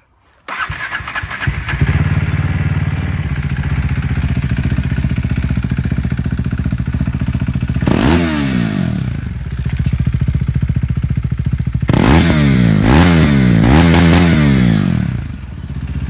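KTM RC 390's single-cylinder engine, breathing through an Akrapovic silencer with its baffle removed, starts about half a second in and settles to a steady idle. It is revved once at about eight seconds, then blipped several times in quick succession near the end before dropping back to idle.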